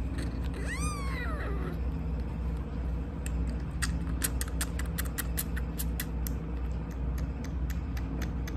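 A young kitten mews once about a second in, a single rising-and-falling cry. Then come quick clicking sucks and smacks, several a second, as it drinks from a feeding syringe, over a steady low hum.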